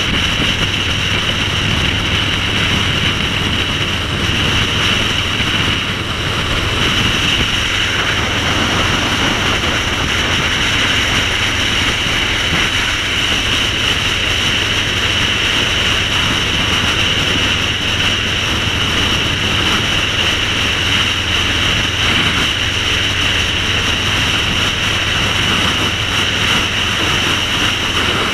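Cruiser motorcycle engine running steadily at highway cruising speed, mixed with the steady rush of wind over the camera microphone.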